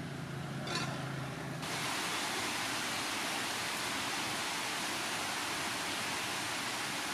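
Steady rain falling on leaves and grass, an even hiss that sets in about a second and a half in. A low hum comes before it.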